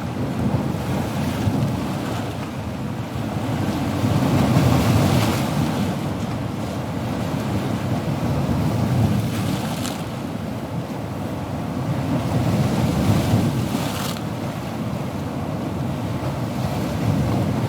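Sea waves washing on a shore, a continuous low rushing that swells and eases every few seconds, with a brighter hiss of breaking surf a few times, around 5, 10 and 14 seconds in. Wind buffets the microphone.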